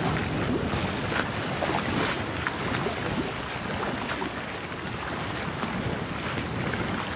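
Wind buffeting the microphone over choppy water, with small waves lapping against a sloped concrete embankment.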